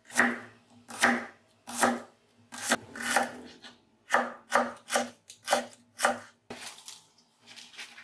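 Chef's knife slicing garlic cloves and then shallots on a wooden cutting board, a crisp knock on the board with each cut, about ten cuts that quicken to about two a second midway. The cutting stops about six and a half seconds in, giving way to softer scraping and rustling.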